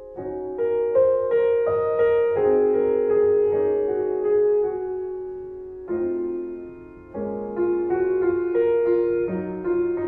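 Background music: a slow piano piece, chords and melody notes struck and left to ring and fade, with a new phrase starting about halfway through.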